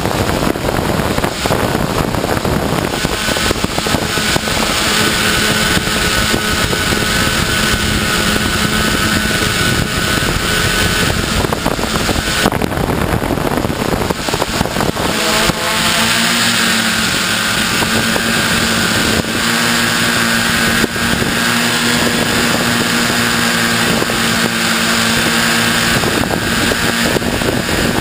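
Multirotor drone's motors and propellers running steadily in flight, a steady whine with wind on the microphone, the pitch shifting slightly about halfway through.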